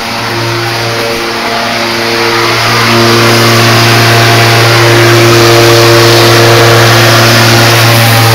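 Lawn mower engine running steadily, growing louder over the first three seconds and then holding at a constant level.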